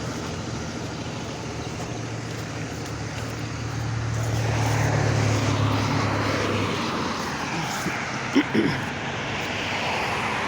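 Road traffic with a heavy vehicle's engine droning low, growing louder as it passes and cutting off about two-thirds of the way in, followed by a couple of short knocks.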